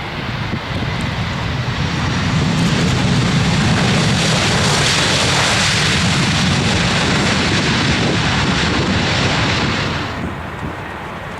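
Airliner engines running loud as a plane passes close by; the noise builds over the first couple of seconds, holds, then drops away suddenly about ten seconds in.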